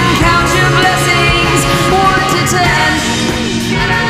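Background music: a rock song with singing over drums.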